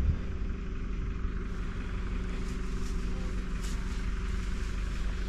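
An engine running steadily nearby: a constant low hum, with a few faint taps in the middle.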